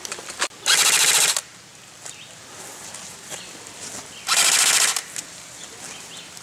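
Airsoft electric rifle firing two short full-auto bursts, each under a second long, about three and a half seconds apart.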